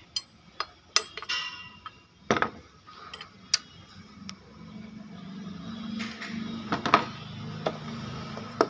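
Spanner clinking and knocking against metal engine parts on the crankshaft sprocket bolt of an Audi A4 diesel engine, a string of sharp separate clinks. A low steady hum comes in underneath about five seconds in.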